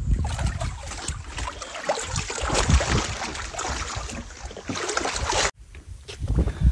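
Shallow water lapping and splashing against a rustic wooden boat hull, with wind buffeting the microphone; the sound cuts off abruptly about five and a half seconds in.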